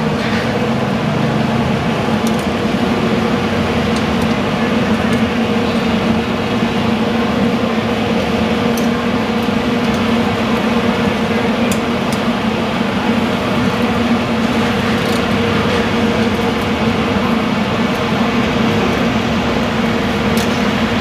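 Steady mechanical hum with a constant rushing hiss that does not change, and a few faint light clicks now and then.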